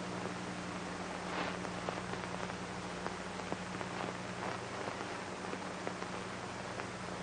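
Steady hiss with scattered faint crackles over a low constant hum, with no music or speech: background noise of an old film soundtrack.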